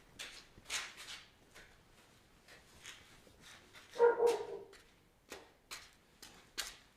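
A dog barks briefly about four seconds in, a short pitched yap with two quick peaks, amid scattered light clicks and rustles.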